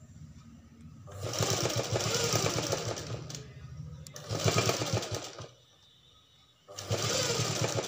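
Derby sewing machine stitching a silk blouse neckline in three short runs, stopping briefly between them while the fabric is turned and guided.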